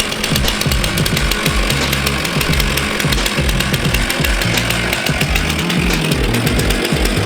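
Chainsaw running under load, ripping a large log lengthwise freehand, with a fast, even rattle, heard under background music with a shifting bass line.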